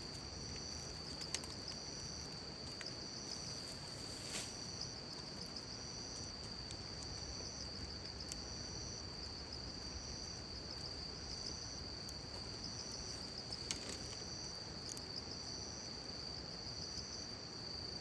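Outdoor insect chorus: one insect trilling steadily at a high pitch while another calls in short bursts about every second and a half. A few sharp clicks stand out, about four seconds in and near fourteen seconds.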